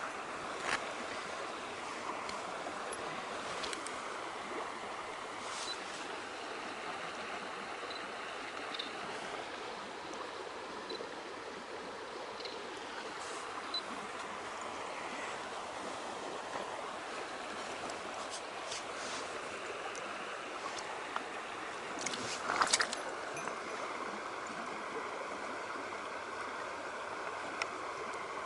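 Mountain stream flowing, a steady rush of water, with scattered small clicks and knocks and a louder cluster of them about three quarters of the way through.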